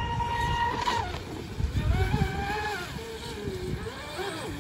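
RC deep-vee speedboat's motor whining at full throttle, its pitch dropping off about a second in, then rising and falling several times as the throttle is worked, over the rush of the hull on the water.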